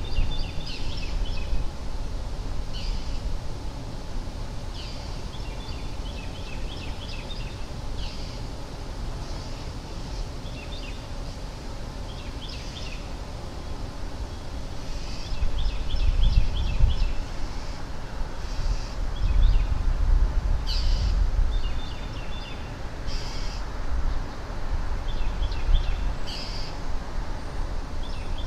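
Birds calling again and again in short runs of quick high notes, over a steady low rumble that swells twice past the middle.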